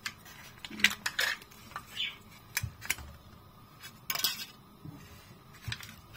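Plastic cups with foil lids being handled on a kitchen countertop: the lids are peeled back and the cups set down, giving a scatter of light clicks and knocks and a short rustle of foil about four seconds in.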